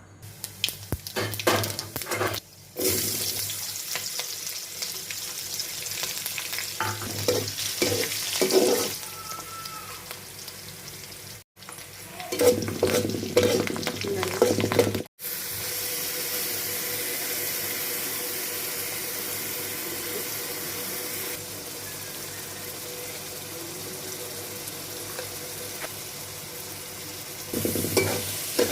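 Food frying in hot oil in a pan, sizzling steadily, with the scrape and clatter of a spoon stirring it. The sound cuts off abruptly a couple of times between takes.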